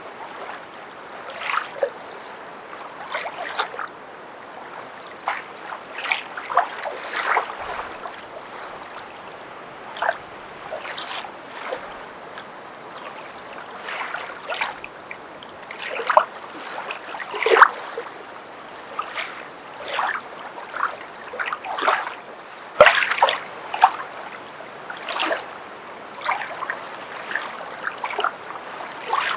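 Footsteps wading through water: irregular splashes about once or twice a second, with the water sloshing between steps.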